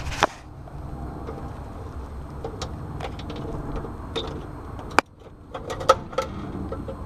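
Several sharp clicks and light knocks of wire terminals and parts being handled on an air conditioner, over a steady low rumble; the sharpest click comes about five seconds in.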